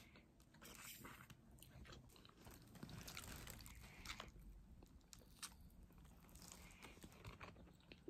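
Faint close-up sounds of a person biting into and chewing a breadstick, with many small clicks from the mouth and the bread.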